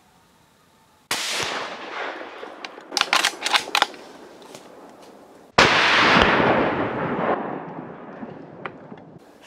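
Savage Axis bolt-action rifle in .350 Legend fired, the shot echoing away slowly. The bolt is then worked in a quick run of sharp clicks, and a second, louder shot follows about four and a half seconds after the first, also echoing.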